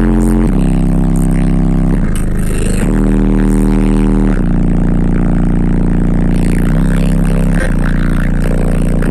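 Homemade 8-inch subwoofer playing loud, deep sustained bass notes that step to a new pitch every second or two, its cone at long excursion.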